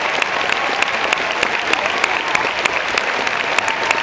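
Audience applauding steadily, a dense wash of many hands clapping with sharp individual claps standing out.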